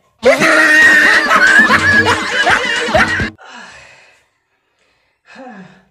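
A loud burst of snickering laughter over music, lasting about three seconds and starting and cutting off abruptly like a dropped-in comedy sound effect. A short quiet voice follows near the end.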